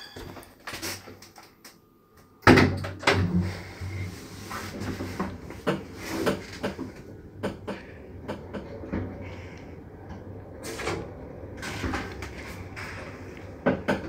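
A 1973 passenger lift in operation. About two and a half seconds in there is a loud clunk, and after it comes a steady low hum with scattered knocks and clicks from the car and its doors.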